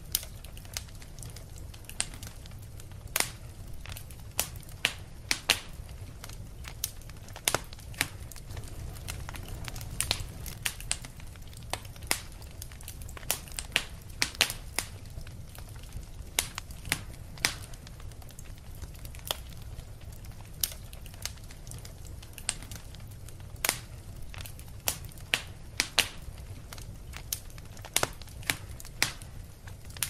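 Wood fire crackling: irregular sharp pops and snaps, several a second at times, over a steady low rumble.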